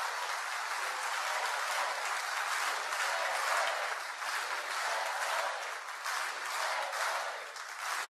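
Audience applauding, a dense steady clatter of many hands clapping, which cuts off abruptly near the end.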